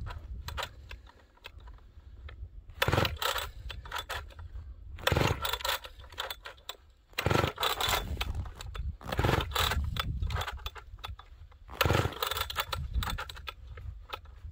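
Partner P65 two-stroke chainsaw being pull-started about five times on full choke, a stroke every couple of seconds: the recoil rope whirs out and the engine turns over but never catches. The saw is cold-soaked at around −25 °F and its recoil is acting up.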